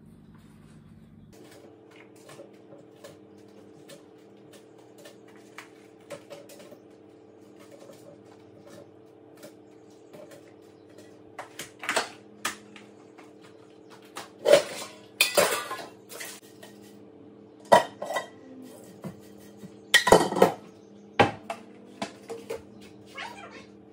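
Dishes, containers and cutlery clinking and clattering as they are handled and set down on a kitchen counter. The clatter grows louder and busier in the second half, over a steady low hum.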